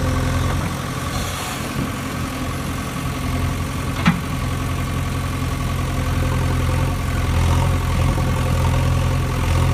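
A steady, low, engine-like idling hum runs throughout. A single sharp click comes about four seconds in.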